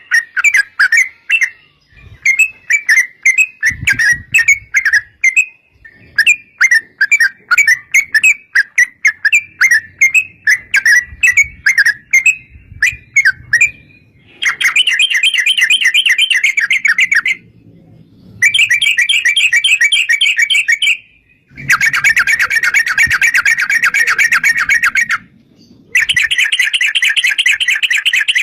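Yellow-vented bulbul (trucukan) singing loudly: quick bubbly chirping phrases at first, then about halfway long, rapid rolling trills ('ropel') that come in bursts of a few seconds with short breaks between.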